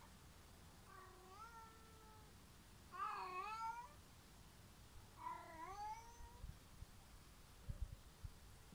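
Domestic cat meowing three times, each a drawn-out call that rises and falls in pitch, the middle one the loudest.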